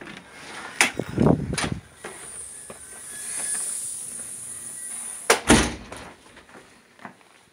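A house's front entry door being opened and shut: sharp clicks and a heavy thud about a second in, a long hiss, then a loud double knock as the door closes about five and a half seconds in.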